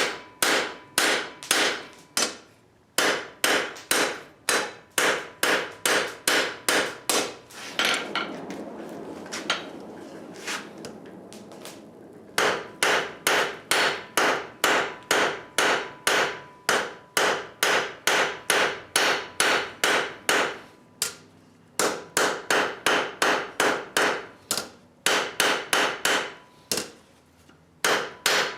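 Blacksmith's hammer striking hot steel on an anvil in steady runs of about two blows a second, broken by short pauses. About a third of the way in, the blows stop for a few seconds of rushing noise.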